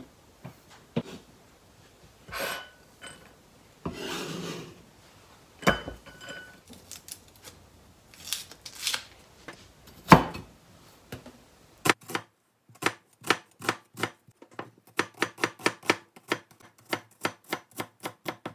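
Chef's knife on a plastic cutting board. Scattered knocks and scrapes come first as diced carrot is gathered up and moved to a bowl, with one sharp knock about ten seconds in. Then comes steady chopping of an onion, about three to four strokes a second, through the last several seconds.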